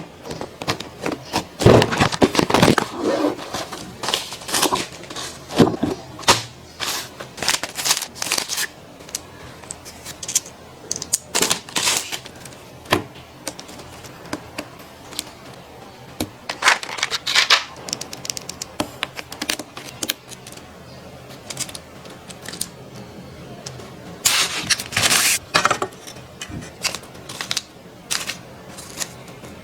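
Mechanical keyboard being handled and typed on: irregular sharp clicks and clacks of the keys and casing, coming in clusters, loudest about two seconds in and again near the end.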